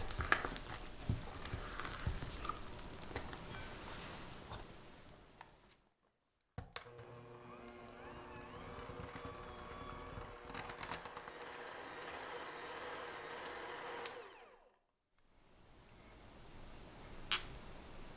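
A silicone spatula scrapes and mashes soft butter against a glass bowl. After a brief silence, an electric hand mixer runs steadily for about eight seconds, its beaters whipping the butter in the glass bowl, and then cuts off. One sharp click comes near the end.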